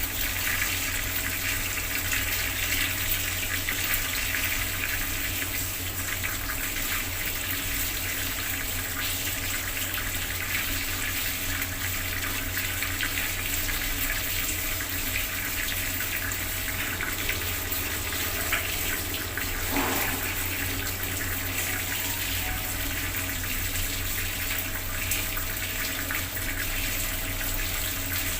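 Bathroom water tap running steadily, its stream splashing down with a constant rushing sound.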